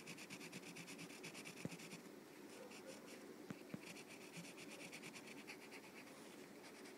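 Shading strokes scratching rapidly back and forth on paper, about eight strokes a second, fainter after the first two seconds, with a few light taps in between.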